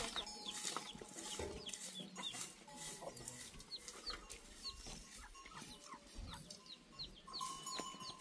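Chickens clucking and chirping, with many short, high, falling chirps scattered throughout.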